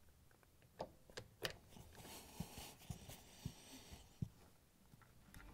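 Faint clicks and light scraping of a Phillips screwdriver turning a screw back in to hold a refrigerator's base grille: a few sharp clicks in the first second and a half, then a soft scraping and small taps.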